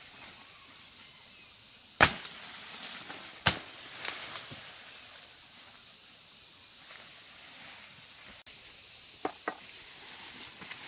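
Two sharp machete chops into sugar cane stalks about a second and a half apart, the first the louder, over a steady high chorus of insects. Two lighter clicks come near the end.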